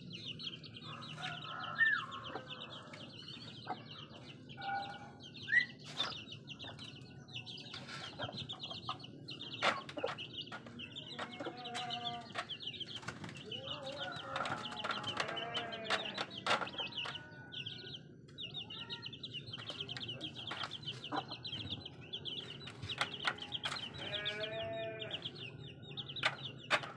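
Young chicks peeping on and on in a high, rapid chorus, with a hen's lower clucking calls now and then and many sharp taps scattered throughout as the birds peck at a plastic and mesh feeder.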